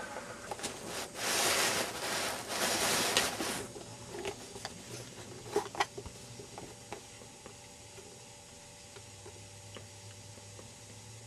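Rustling, scraping noise in two stretches lasting about two and a half seconds, then a few light clicks and taps, leaving a faint steady hum.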